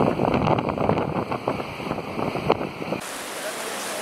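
Fast mountain river rushing, with irregular splashing as people wade through the current. About three seconds in, the sound changes to a steady, even rush of water.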